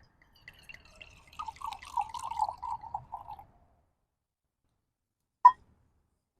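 Wine poured into a small wine glass, a wavering gurgle for about three seconds. About five and a half seconds in, a single sharp clink.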